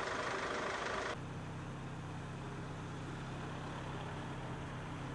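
A steady rushing noise that cuts off about a second in, replaced by the steady low hum of an idling engine.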